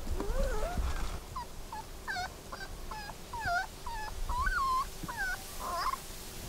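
Golden retriever puppy whimpering: a quick string of about ten short, high whines that bend up and down in pitch.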